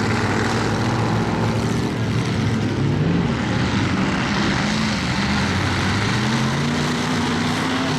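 Several demolition-derby cars' engines running and revving at the same time, their pitches rising and falling over one another.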